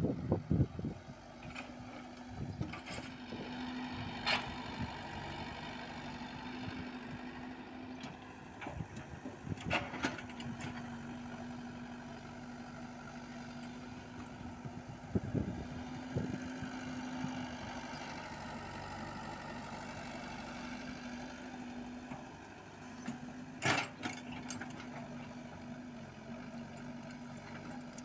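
Komatsu PC78UU mini excavator's diesel engine and hydraulics running steadily while digging soil, with short sharp knocks and clatters of the bucket and clods every few seconds, the loudest near the end.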